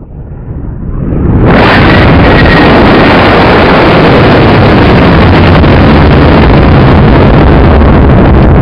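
Experimental O-class solid rocket motor of a 10-inch, 225-pound high-power rocket igniting and lifting off: the noise builds over about a second and a half into a very loud, steady roar.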